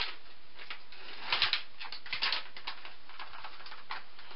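A plastic-foil protein sample packet being handled: a few faint, scattered crinkles and ticks over quiet room noise.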